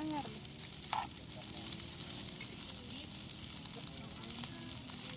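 Steady, fine crackling sizzle of nasi goreng (fried rice) frying in a pan, with faint voices in the background.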